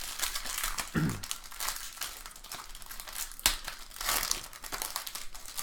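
Card pack wrappers and packaging crinkling as they are handled, in an irregular run of crackles and ticks.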